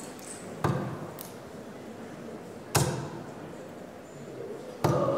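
Three darts thudding one after another into a Bull's Focus II bristle dartboard, each a sharp single hit about two seconds apart, over the low murmur of a hall.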